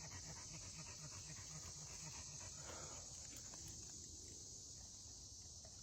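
Faint, steady high drone of insects, with a dog's quick, quiet panting in the first couple of seconds.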